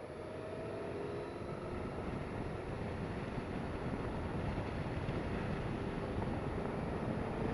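Yamaha FZ8 motorcycle's inline-four engine running at road speed, mixed with wind rushing over the microphone; the noise builds gradually.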